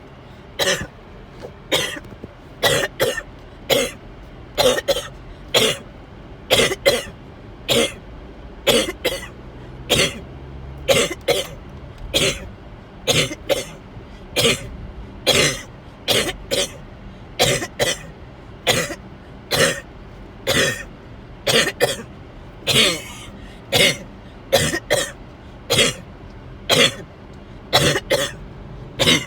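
A person with a fever coughing in a long, unbroken fit: short, sharp coughs coming about once or twice a second, often in pairs.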